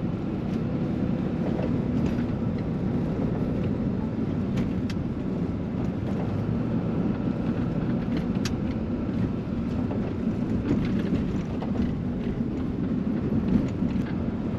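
Ram pickup truck driving along a dirt track, heard from inside the cab: a steady rumble of engine and tyre noise with scattered small knocks and rattles.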